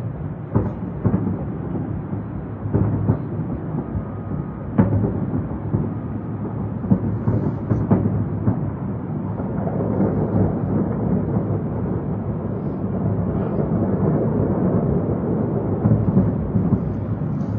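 Distant aerial fireworks: a continuous rumble of many shell bursts, with single sharper bangs standing out now and then.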